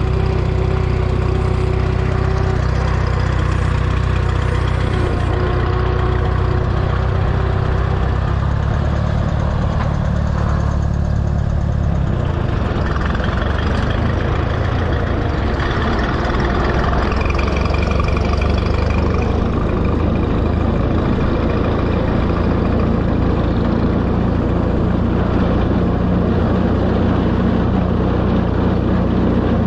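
Minneapolis-Moline tractor engine running steadily at idle, then pulling away under load about twelve seconds in, its note shifting and more wind noise coming in as it drives along the road.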